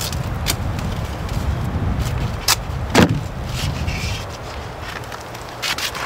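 Clicks and knocks of hands working at an outdoor hose spigot while fitting a cover over it, the loudest a single knock about three seconds in and a quick cluster of clicks near the end, over a steady low rumble.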